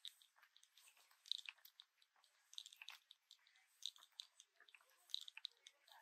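Faint footsteps crunching on a walking track: irregular small crunches, with a louder crunch about every second and a bit.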